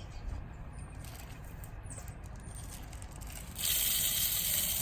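Bird seed being poured into a bird feeder: a rushing hiss of falling seed begins about three and a half seconds in. Before it there is only a low rumble and a few faint bird chirps.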